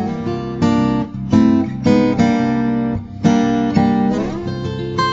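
Background music: acoustic guitar strumming chords, a new chord about once a second.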